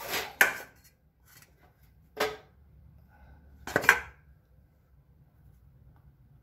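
Sharp metallic clanks of tools and steel suspension parts while a spring shackle is worked into place: two near the start, one a little over two seconds in and the loudest near four seconds, then only a faint low hum.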